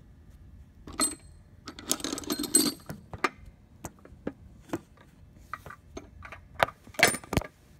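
Handling noise from a phone camera being gripped and repositioned: irregular clicks and knocks, with a burst of rubbing about two seconds in and the sharpest knocks about a second in and near the end.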